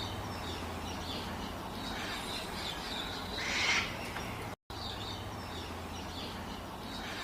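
Cockatoo giving one loud, harsh screech about three and a half seconds in, over faint chirps and a low steady hum; after a brief gap the same short recording starts over.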